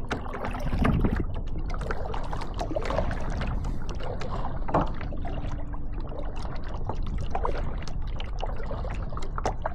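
Kayak paddles dipping and splashing in water, in irregular strokes over a steady low rumble.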